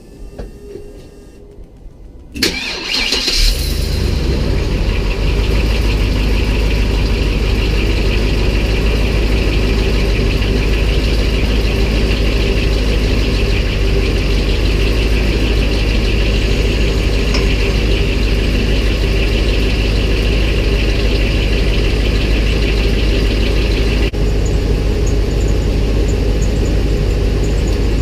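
A large vehicle engine cranks and starts about two and a half seconds in, then settles into a steady idle.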